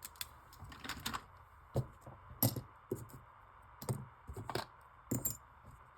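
Small metal parts and tools being handled on a workbench: about seven scattered, irregular light clicks and taps.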